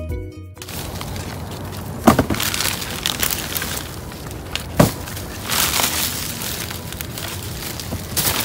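Plastic bags and wrapping crinkling and rustling as gloved hands rummage through a pile of discarded produce, with two sharp cracks, about two seconds in and about five seconds in.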